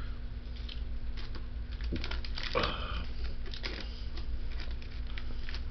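Irregular small clicks and rustles close to the microphone, with a brief voice-like sound about two and a half seconds in, over a steady low hum.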